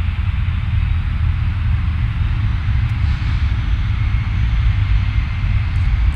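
Lockheed L-1011 TriStar 500's Rolls-Royce RB211 turbofans running at taxi power: a steady low rumble with jet hiss, and a faint high whine coming in about four seconds in.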